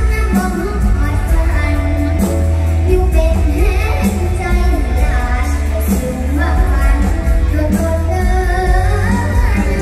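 Live mor lam band music with a young girl singing the lead into a microphone, her melody wavering and sliding over the band's strong bass.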